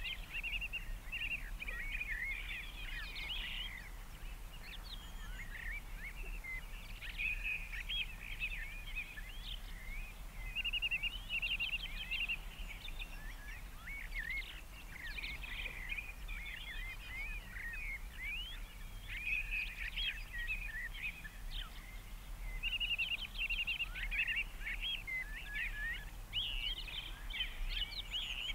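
Several small birds chirping and twittering without a break, in quick overlapping bursts of high notes, over a faint steady low hum.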